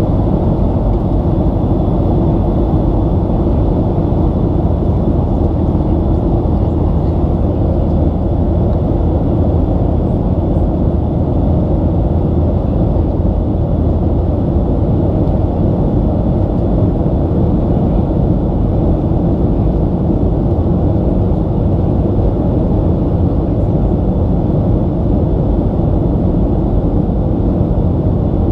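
Steady low rumble of cabin noise inside a Boeing 737 airliner, even and unbroken throughout.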